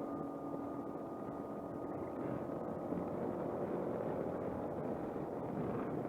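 Suzuki Burgman 200 scooter's single-cylinder engine running steadily at cruising speed, mixed with wind and road noise.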